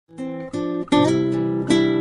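Background music: an acoustic guitar strumming four chords, each struck sharply and left to ring out.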